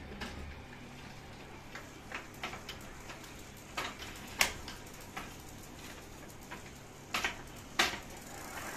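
Bicycle rear wheel spinning, with faint irregular clicks and ticks. About eight sharp ticks come at uneven intervals, the loudest a little after the middle and near the end.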